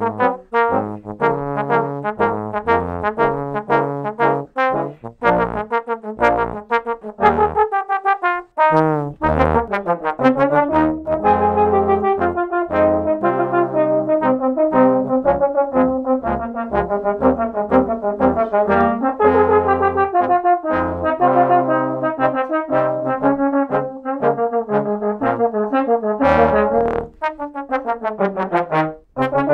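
Trombone quartet (three tenor trombones and a bass trombone) playing a four-part arrangement in close harmony over a low bass line. The first several seconds are short separate notes; after that the parts move into longer, held chords.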